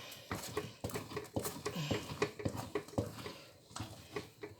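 Thick maize-meal porridge (pap) being stirred in a pot: a quick, irregular string of wet slaps and plops, several a second.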